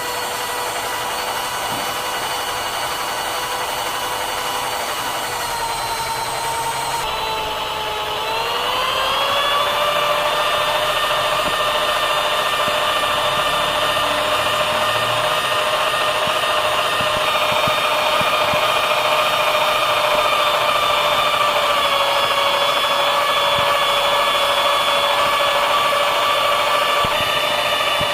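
Electric power tool motor running with a steady whine; about six seconds in its pitch sags, then climbs back up and holds steady at a slightly higher pitch for the rest of the time.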